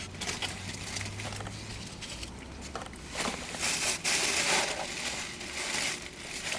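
Close-up eating sounds: a person chewing a chopped cheese sandwich, with irregular noisy bursts that grow louder about three seconds in.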